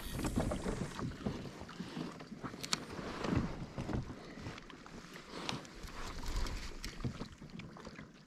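Water splashing and sloshing around a kayak in irregular strokes, with some wind on the microphone.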